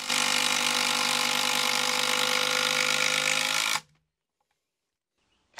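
A Makita 10.8 V impact driver and a Makita 10.8 V drill-driver in first gear running together, driving screws into wood. The steady running sound cuts off abruptly about four seconds in.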